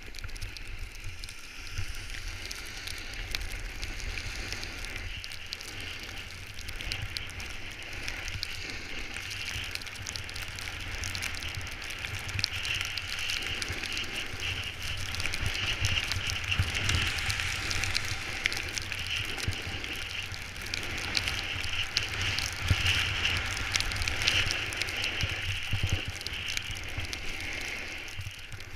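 Snowboard edge scraping and hissing over packed snow during a continuous downhill ride, with wind rumbling on the camera's microphone. The scraping grows a little louder in the second half.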